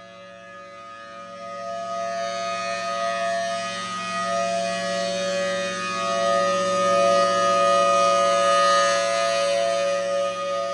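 Federal Signal Thunderbolt 1000T outdoor warning siren sounding a steady chord of two tones on a tornado-siren test. As the rotating horn turns, it swells louder a couple of seconds in, dips briefly, peaks again later, and begins to fade near the end.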